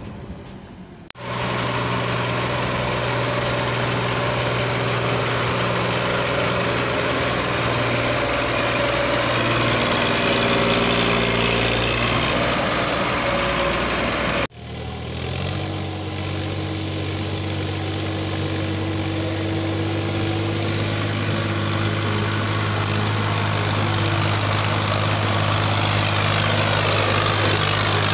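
Tractor diesel engines working hard, each hauling a fully loaded soil trolley. The first engine's pitch shifts a little about ten seconds in. Halfway through, the sound cuts abruptly to a second tractor engine under load, with a steadier, stronger low hum.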